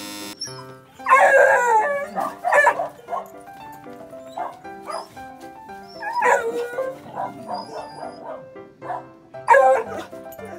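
A dog barking and howling in four loud bursts, its pitch bending up and down, eager to get through the gate to the dog friends it is missing.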